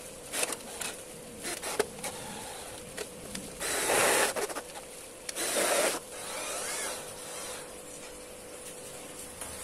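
Cordless drill driving self-drilling screws into a light-steel L-profile frame. It runs in two bursts of about a second each, near the middle, with small clicks and knocks of the steel being handled around them.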